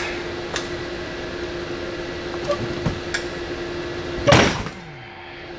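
A steady hum with a few faint clicks while a ratchet on a long extension is strained against a seized CNG high-pressure filter housing held in a vise, which does not break free. About four seconds in comes one short, loud burst of noise.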